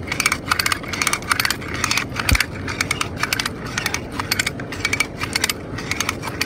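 Come-along hand winch being ratcheted, its pawl clicking rapidly and unevenly as the strap and winch cable tighten. A single low thump comes a little past two seconds in.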